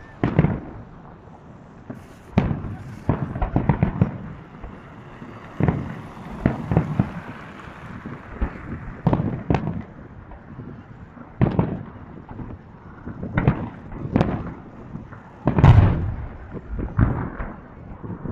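Fireworks salute: aerial shells bursting in irregular booms, some singly and some in quick clusters of pops, with the loudest boom about three-quarters of the way through.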